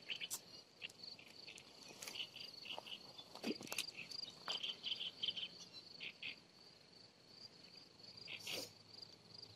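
Faint outdoor insect chorus: a steady high trill with short repeated chirps, broken by a few brief clicks and taps.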